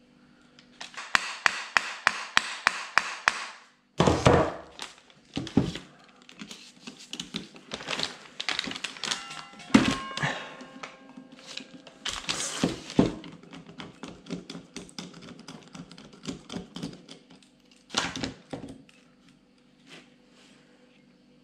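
Hand ratchet clicking in an even run of about three to four clicks a second as bolts are turned into a Peugeot/Citroën HDi starter motor. Then a loud thunk about four seconds in, followed by scattered knocks and metal clatter as the starter housing and tools are handled.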